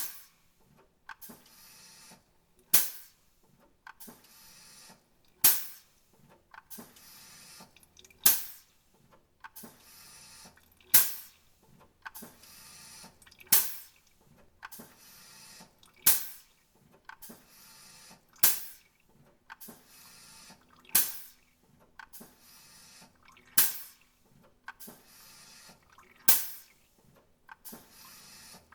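Sharp clicks repeating at an even pace, about one every two and a half to three seconds, each with fainter ticks in between.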